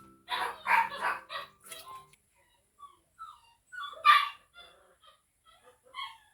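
Dog barking: about four quick barks in the first second, then a single louder bark about four seconds in, with faint chirping calls of birds or chickens in between.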